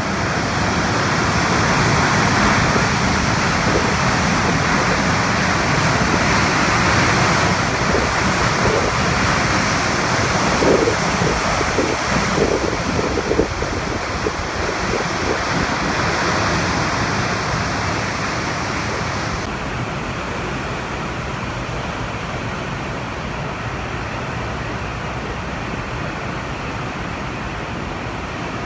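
Hurricane wind and heavy surf rushing steadily, with the wind buffeting the microphone and a few short thuds between about eight and thirteen seconds in. About two-thirds of the way through, the sound turns duller and a little quieter.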